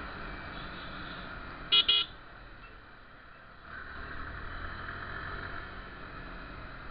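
Two short toots of a vehicle horn close by, about two seconds in, over the steady engine and wind noise of a motorcycle riding along.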